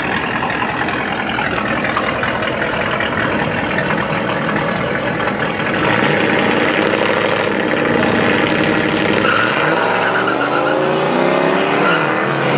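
Nitrous-fed drag-racing pickup truck's engine running at the start line, then launching hard about six seconds in and accelerating away, its pitch climbing again and again through the gears.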